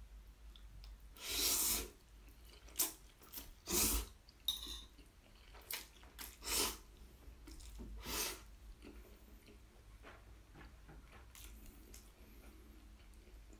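A person slurping thick Jjapaghetti black bean noodles in a string of short noisy sucks over the first eight seconds or so, then chewing quietly.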